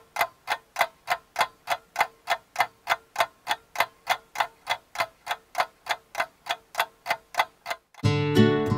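Ticking clock countdown timer, a steady tick about four times a second, stopping about eight seconds in as strummed acoustic guitar music starts.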